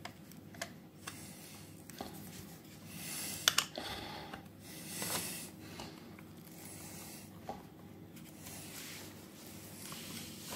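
Faint scratching and rubbing with light clicks of hand-tool work on an electric chainsaw's bar: a screwdriver turning the chain-tension screw and the bar nut being done up. A couple of sharper clicks come about three and a half seconds in.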